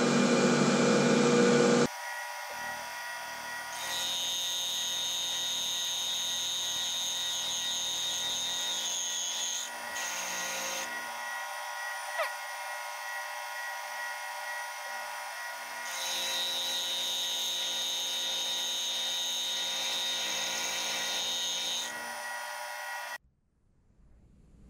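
1941 Bridgeport J-head milling machine running with an end mill side-milling a square bar; a steady high whine comes in for two stretches of several seconds while the cutter is working. The sound changes level abruptly several times and drops away about a second before the end.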